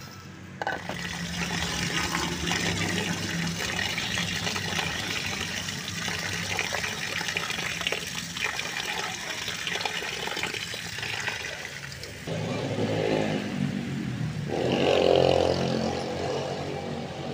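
Water splashing and running as rice is washed by hand in a steel plate. From about twelve seconds in, a louder sound with a steady pitch takes over, loudest around fifteen seconds.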